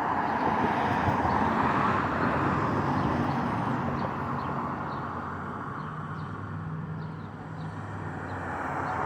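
Road traffic: a passing vehicle's rush of tyre and engine noise swells in the first couple of seconds and then slowly fades, over a low steady engine hum.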